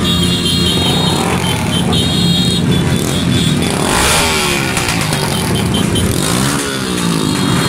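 A group of motorcycles running close together in a slow procession, with engines revved up and back down about halfway through and again near the end. A high, steady tone keeps coming and going over the engines.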